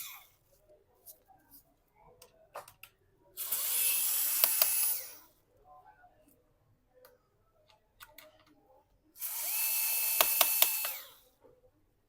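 Electric screwdriver whirring in two runs of about two seconds each, about three and a half and nine seconds in, backing out the screws that hold a laptop battery, with a few sharp clicks during each run.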